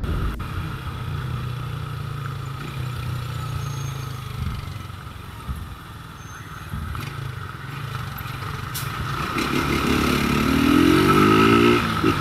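Small motorcycle engine running at low revs while the bike creeps through slow traffic, heard from the rider's position. About nine seconds in it accelerates, the pitch rising and getting louder, with a short break near the end before it rises again.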